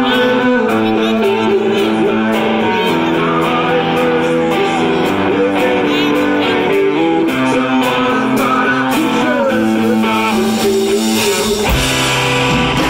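Live electric guitar played through a stage amplifier, picking out a melodic intro of held notes. Near the end the sound fills out with strong low notes as more of the band comes in.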